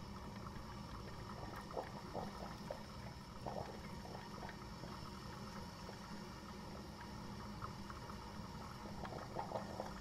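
Coffee maker brewing: a steady low hum and hiss with scattered bubbling pops of hot water, in clusters about two seconds in, around three and a half seconds, and again near the end.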